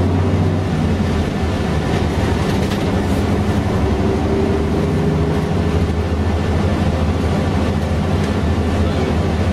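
Mercedes-Benz O407 city bus under way, heard from inside the passenger cabin: its six-cylinder diesel engine running steadily with road noise, and a faint whine rising slightly around the middle.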